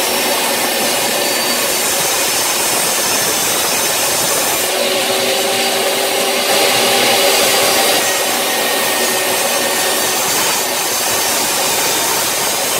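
Table saw running with a steady whine, ripping a eucalyptus hardwood flooring board into thin strips.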